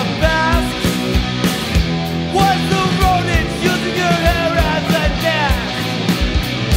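Hardcore punk recording: distorted electric guitar and bass chords over a steady drum beat, with a lead line that bends and slides in pitch.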